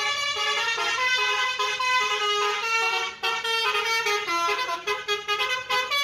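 Basuri telolet horn on a coach bus playing a tune, several horn tones sounding together and stepping from note to note. It breaks briefly about three seconds in, and the notes turn short and choppy near the end.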